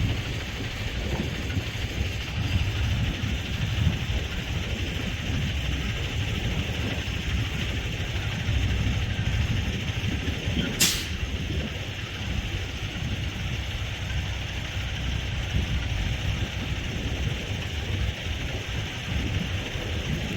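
Steady engine and road rumble of a moving vehicle, with a single sharp click about eleven seconds in.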